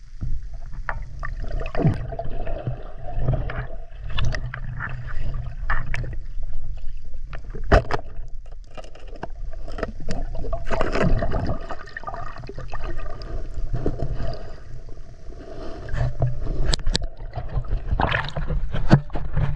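Water gurgling and sloshing around a diver, heard muffled underwater, with a steady low rumble and scattered sharp clicks throughout.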